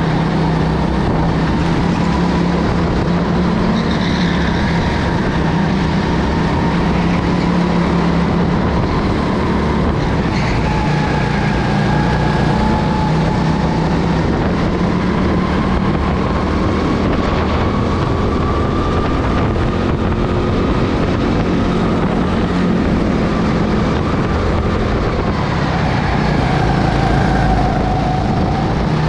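Racing kart engine running hard under load, heard onboard, its pitch drifting slowly up and down as the revs change with the throttle.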